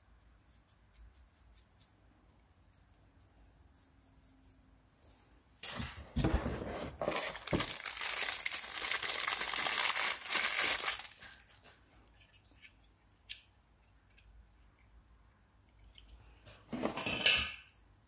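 Plastic wrapping crinkling and being torn open by hand for about five seconds, then a shorter burst of crinkling near the end, with light handling clicks in between: the plastic pack around small batteries being opened.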